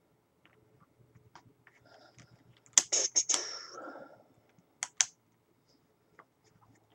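A cluster of sharp clicks and rustling about three seconds in, lasting about a second and a half, then two single clicks a moment apart, typical of a phone being handled.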